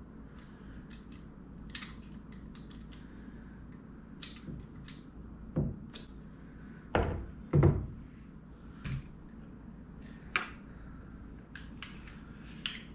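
Light clicks and ticks of a small hand tool working on a crossbow's fittings during assembly, with a few dull thumps about halfway through as the crossbow is knocked against the table.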